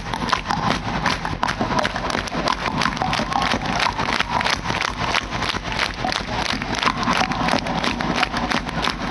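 Concert crowd clapping along in time, with many sharp claps close to the microphone over the live music.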